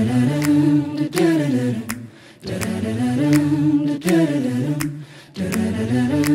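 Mixed a cappella vocal group humming wordless harmony in three phrases of about two seconds each, the chords sliding in pitch, over a steady beat of sharp clicks.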